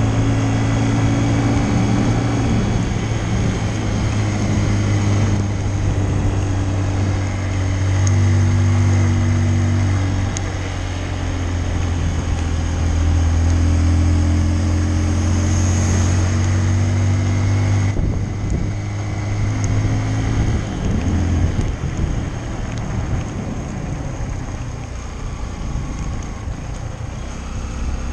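Honda CRF150L's single-cylinder four-stroke engine running under way, its note stepping up and down in pitch, with wind noise on the microphone.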